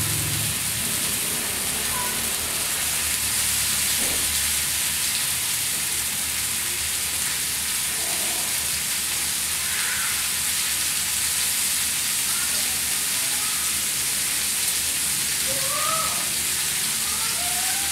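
Pork steak frying in hot fat and melting butter in a shallow metal pan: a steady sizzle.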